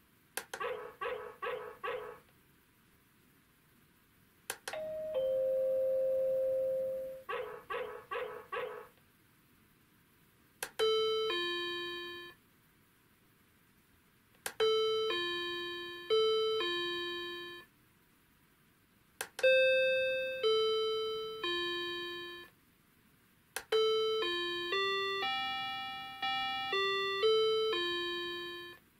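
Croma 230A electronic door chime playing one ringtone after another, each started by a click of its selector button. First comes a fast trill of repeated notes, then a held tone followed by another trill, then a single decaying chime note, then a four-note ding-dong, and last a short falling tune and a longer bell-like melody of about ten notes.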